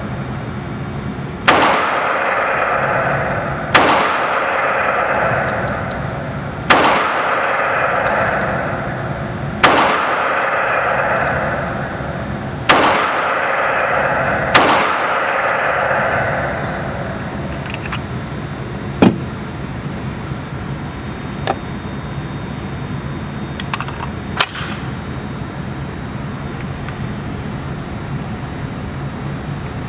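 Six shots from a CZ 97B .45 ACP pistol firing Trajtech 185-grain semi-wadcutter match rounds, spaced two to three seconds apart, each with a long echo. A few fainter sharp clicks follow in the second half.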